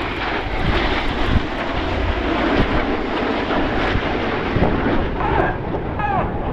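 Red Arrows' BAE Hawk T1 jets flying past in formation: a loud, steady rush of jet engine noise.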